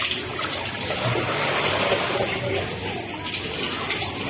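Water rushing and splashing in a steady, even hiss.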